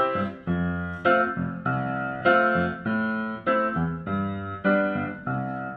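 Background music: piano chords struck in a steady rhythm, just under two a second, each ringing and fading before the next.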